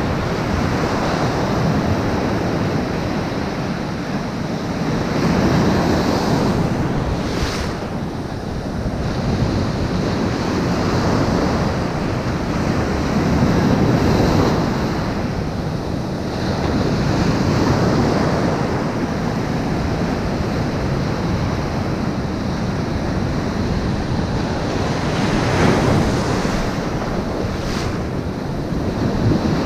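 Ocean surf breaking on the shore, swelling and easing every few seconds, with wind buffeting the microphone.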